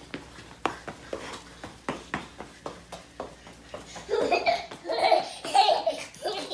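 Loud laughter in short repeated bursts, starting about four seconds in. Before it come scattered light taps.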